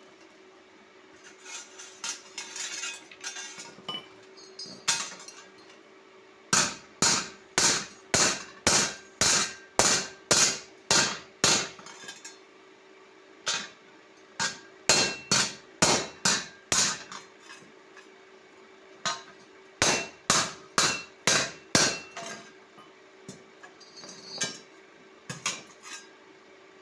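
Hammer striking metal in runs of quick, hard blows, about two a second, with lighter taps before and after.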